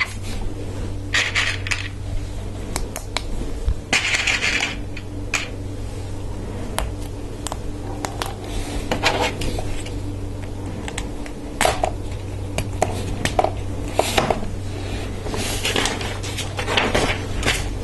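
Hard plastic LEGO Technic parts clicking and clattering as pins and beams are handled and pressed together, with many scattered sharp clicks and a few short rustles, one near the end as the paper instruction booklet is handled. A steady low hum runs underneath.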